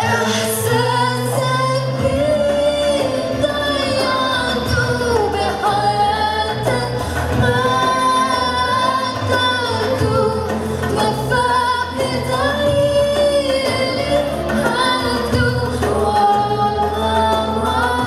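A woman singing a slow melody into a microphone, with long held notes, over instrumental accompaniment with a steady bass line.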